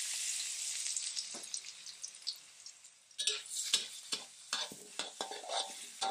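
Chopped garlic sizzling in oil in a wok over low heat, the hiss fading over the first three seconds. From about three seconds in, a metal spatula scrapes and knocks against the wok in repeated strokes as the garlic is stir-fried.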